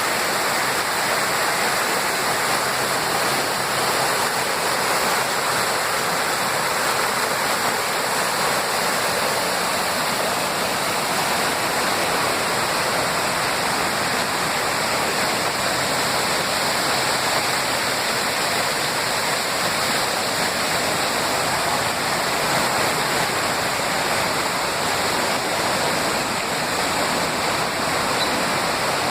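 Waterfall: water falling and splashing with no breaks or changes in level.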